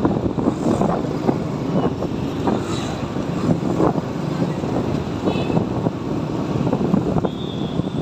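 Motor scooter running along a busy road, its engine mixed with wind rushing over the helmet-side microphone and the sound of surrounding motorbikes and cars. A short high-pitched tone sounds briefly near the end.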